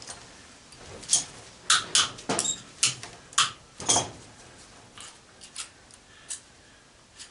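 Pliers working a stuck nut loose on the fan's motor: a series of short, sharp metallic clicks and small knocks, about seven in quick succession, then a few fainter ones.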